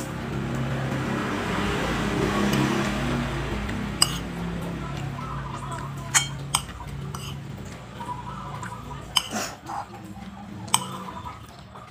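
Metal spoon clinking and scraping against a ceramic plate while scooping up rice, with about six sharp clinks starting about four seconds in.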